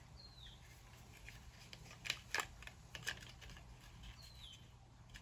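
Faint handling noises: a few light clicks and taps about two to three seconds in, as small product packaging is handled. A faint short high chirp that falls in pitch is heard twice, near the start and again about four seconds in.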